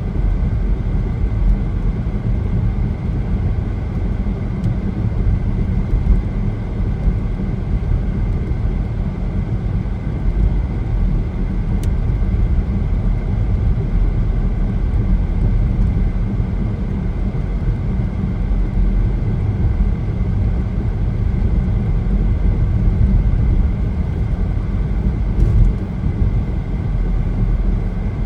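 A car driving on a highway, heard from inside the cabin: a steady low rumble of tyres and engine, with a faint steady high tone above it.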